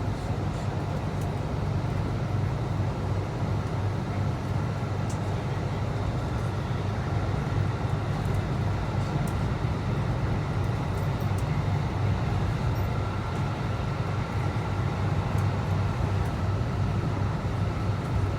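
Steady running rumble of an electric train heard from inside the passenger car, with a faint whine in the middle.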